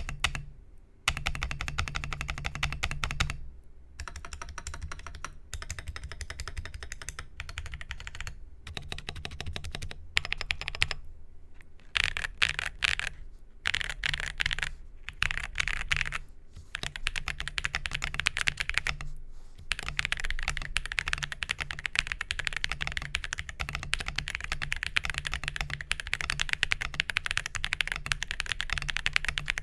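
Typing test on a CK820 75% keyboard with an aluminium case, polycarbonate plate, Neapolitan Ice Cream switches and lubed Durock V2 stabilizers: rapid keystrokes in runs with short pauses. Poron case and plate foam has been fitted in place of the stock foam to damp its pingy, hollow sound.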